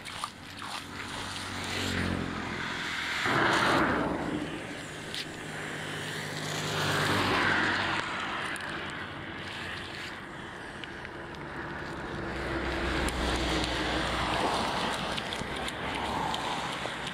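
Motor vehicles passing on a street, one swelling up about three seconds in and another about seven seconds in, with a low engine hum again near the end, over a steady background wash.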